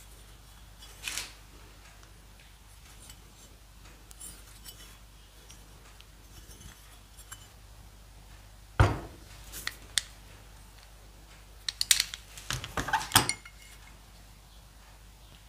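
Metal engine parts being handled and set down on a rubber-matted workbench: a sharp knock about nine seconds in, then a few clinks and taps a few seconds later, over a faint low hum.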